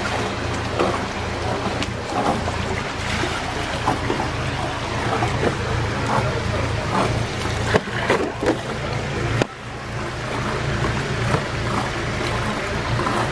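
Water churning and lapping in a lock chamber over a steady low rumble, with scattered small splashes and knocks. The rumble drops suddenly about nine and a half seconds in and slowly builds back.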